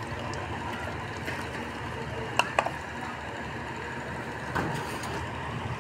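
Street ambience with a steady traffic hum, broken by sharp clinks of utensils on the stall's steel pani pots: two close together about halfway through and a third a couple of seconds later.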